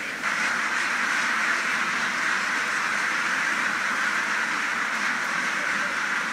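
A huge flock of domestic ducks calling all at once, a dense, steady din of quacking in which no single call stands out. It jumps up in level about a quarter of a second in.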